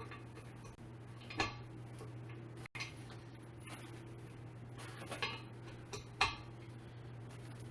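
A few separate sharp clicks and knocks of chair casters being handled and pushed into a gaming-chair base, over a steady low hum.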